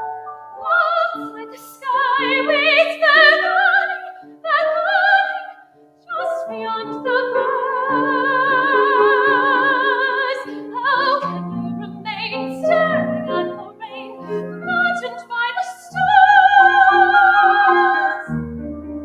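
A classical-style soprano singing with a wide vibrato on long held high notes, accompanied by piano.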